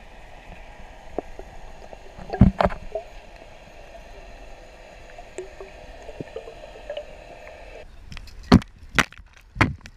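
Underwater sound heard through an action camera's waterproof housing: a steady muffled hiss with scattered small clicks and a couple of louder knocks about two and a half seconds in. Near the end the sound changes to open air, with several sharp hits as water spray strikes the camera.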